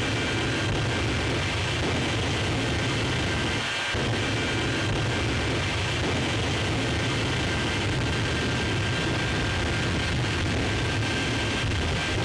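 Jet engine of a jet-powered show truck running at full power with afterburner flames: a steady, loud roar with a low rumble underneath and thin high tones over it.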